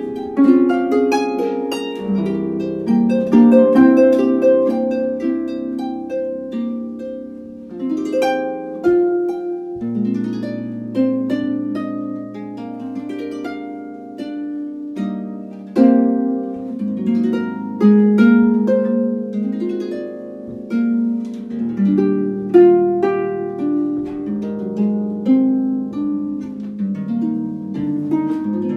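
Solo harp music played on a French Erard Gothic double-action pedal harp: a steady run of plucked notes and chords ringing over held bass notes.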